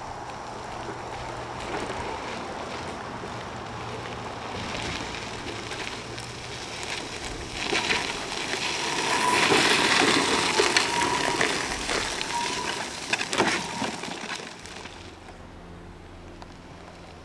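Permobil F3 power wheelchair rolling over a gravel road, its tyres crunching and crackling on the loose stones. It grows louder around the middle as the chair comes close, then fades near the end.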